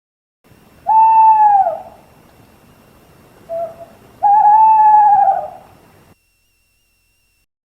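Owl hooting: a long hoot that drops at its end, a short note, then a long wavering hoot.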